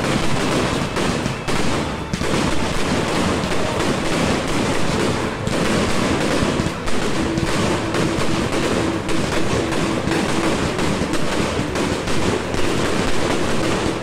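Three 100-shot salute cakes firing together, a rapid, unbroken barrage of launches and sharp bangs.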